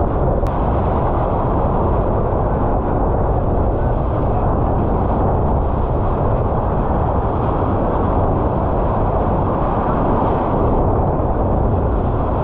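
Steady, loud rush of strong wind buffeting the action camera's microphone, mixed with water rushing past the hull of a J/99 sailboat sailing fast in about 25 knots of wind and rough seas.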